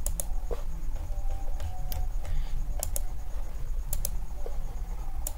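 Computer mouse clicking: sharp clicks about once a second, some in quick pairs, over a steady low hum.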